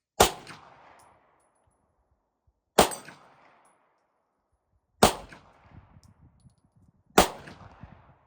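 Four single pistol shots from a Walther P1 9 mm, fired slowly about two seconds apart, each a sharp crack with a short ringing tail.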